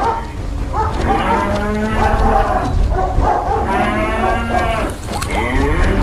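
Cattle mooing: several long, overlapping moos over a steady low rumble.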